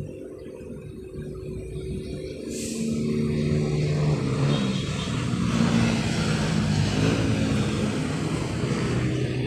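An engine running, growing louder over the first three seconds, its pitch shifting up and down in steps.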